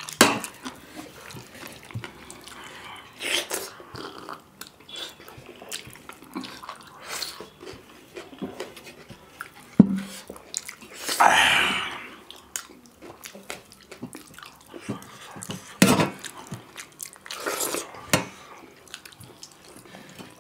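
Mukbang eating sounds from hand-eating: wet smacking and slurping of dhido and chicken gravy, with scattered clicks and knocks of brass plates and bowls. The sharpest knock comes about halfway through, followed shortly by a longer wet slurp of about a second.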